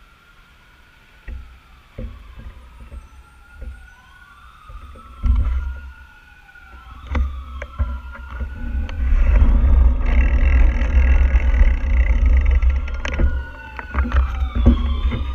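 An emergency vehicle siren wailing, its pitch sweeping up and down every two to three seconds and growing louder as it comes closer. From about five seconds in, a heavy low rumble with scattered knocks comes in and is the loudest sound.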